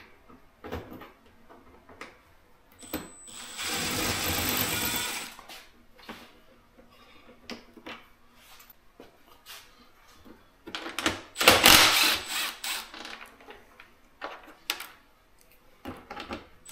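Clicks and clatter of plastic body panels, clips and fasteners being worked loose on a side-by-side. Two longer spells of mechanical rattling stand out: one a few seconds in lasting about two seconds, and a louder one past the middle.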